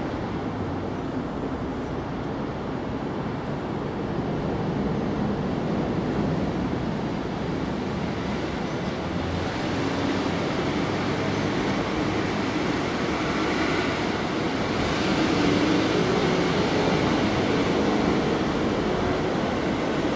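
Washing machine running with a steady rumble and hiss, which grows a little louder and brighter about halfway through.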